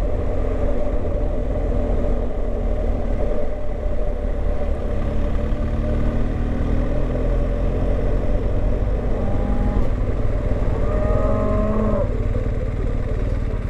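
Steady rumble of the BMW R 1250 GS's boxer-twin engine and wind on the rider's microphone. About ten seconds in, a cow moos once for a second or so.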